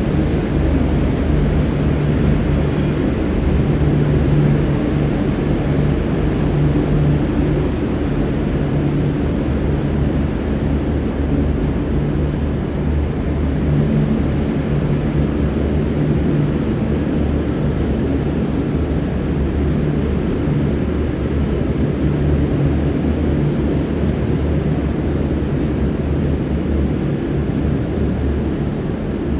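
Diesel engines of a V/Line VLocity diesel multiple unit running under power, a steady low drone over a heavy rumble that eases slightly toward the end.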